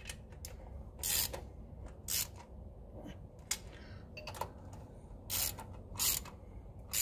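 Hand ratchet clicking in short bursts, about one a second, while intake manifold bolts are snugged down lightly by hand, just enough to seat the gasket without torquing them.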